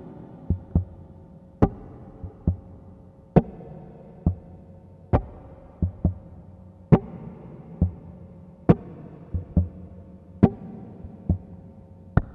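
Intro sound design: sharp, loud clicks about every second and three-quarters over a low steady drone, with softer paired thumps falling between them.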